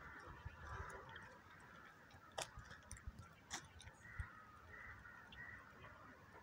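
Near silence: faint outdoor ambience with distant bird calls. Two sharp clicks come about two and a half and three and a half seconds in.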